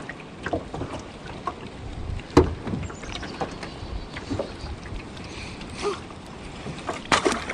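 Lake water splashing and lapping against the side of a small boat as a child reaches over into it, with scattered knocks on the hull. The loudest knock comes about two and a half seconds in.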